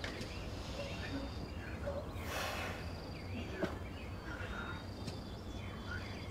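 Outdoor rural ambience: small birds chirping in short repeated calls over a steady low hum, with a brief rush of noise a little after two seconds and a single click about three and a half seconds in.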